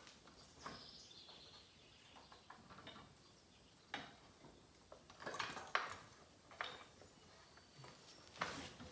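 Scattered light metallic clinks and knocks from hand tools and wheel hardware being handled while a tire is taken off, with a small cluster of clanks about five to six seconds in.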